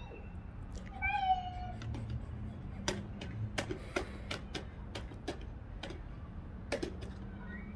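A young child's high-pitched wordless vocal sound about a second in, a short sung note falling slightly, followed by scattered light taps and a brief rising vocal sound near the end.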